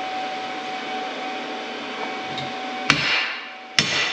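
A steady whirring hum, then about three seconds in two sharp hammer blows on a steel workpiece, each ringing briefly.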